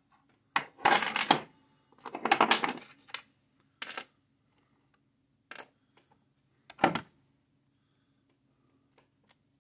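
Steel parts clinking and rattling as the indicator ring is worked off the handwheel shaft of a cast iron X/Y table. There are two short rattles in the first three seconds, then a few single clinks spaced a second or more apart.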